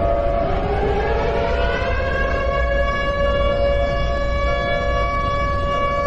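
Civil-defence warning siren winding up in pitch over the first two seconds or so, then holding a steady, loud tone, with a second, lower steady tone under it; it cuts off abruptly at the end.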